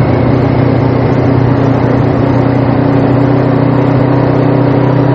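Suzuki GS500 parallel-twin engine running at a steady, unchanging pitch while riding, with the rush of wind and road noise over it.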